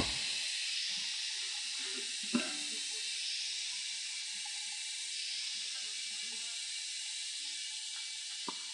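A steady high hiss, with one sharp wooden knock about two and a half seconds in and soft handling sounds, then two small knocks near the end.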